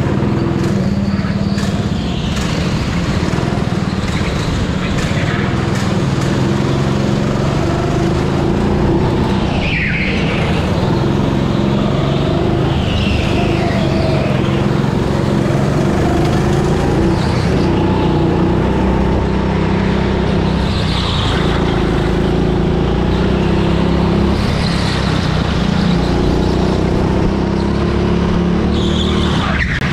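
Onboard sound of a rental go-kart driving flat out round an indoor track: a steady motor drone whose pitch rises and falls with speed through the corners. Brief high tyre squeals come a few times, the first about ten seconds in.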